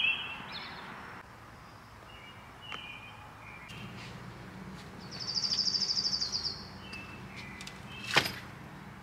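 Early-morning birdsong: several songbirds giving short whistled calls that slide down in pitch, with a fast high trill about five seconds in. A single sharp knock near the end, over a faint steady low hum.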